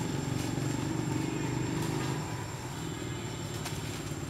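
Low steady hum of an engine running nearby, easing off a little about two seconds in. A thin, steady high-pitched tone sits above it.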